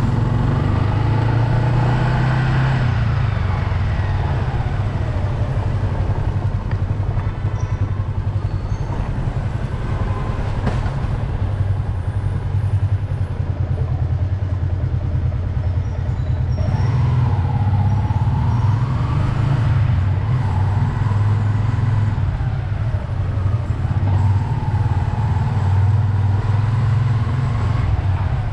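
Motorbike riding through traffic: a steady low engine rumble with road noise, and a higher whine that rises and falls a few times as the speed changes.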